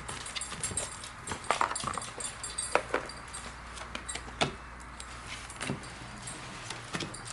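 Irregular light clicks and clatters of small hard objects being handled, over a low steady hum.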